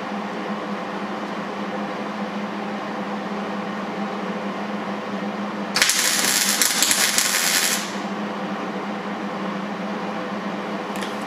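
MIG welder striking a single tack weld on thin sheet metal: about two seconds of crackling arc just past the middle, which then cuts off. The welder judges the wire speed or heat a touch too low.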